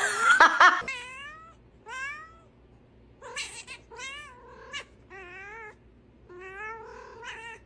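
A domestic cat meowing repeatedly, about half a dozen short meows spaced a second or so apart, several of them rising in pitch.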